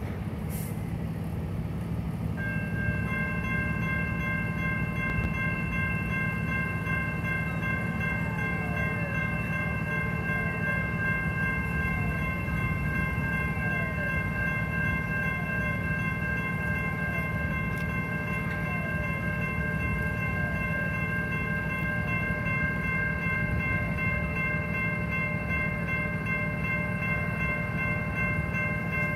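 Electronic railroad crossing bell, which takes the place of an older mechanical bell, starting about two seconds in and sounding as a steady ringing of several high tones without a break. A faint falling chirp repeats about once a second from a few seconds later, over a steady low rumble.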